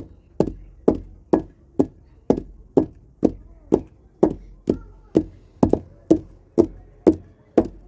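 Saucepan of cake batter knocked repeatedly against a hard surface, about two knocks a second, each with a short metallic ring, to shake the trapped air out of the batter before steaming.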